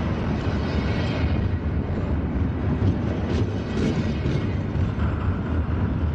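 Freight train rolling past: a steady, loud low noise of the cars on the rails, with a few faint higher squeaks near the middle.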